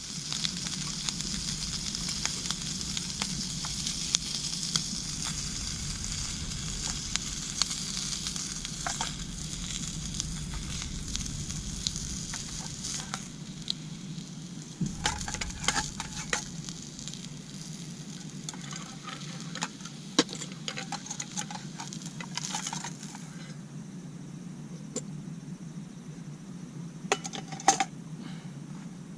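Food sizzling in a pan on a camp stove, with utensil clicks and clinks as it is stirred. The sizzle stops about three-quarters of the way through, leaving a low steady hum and a few more clinks.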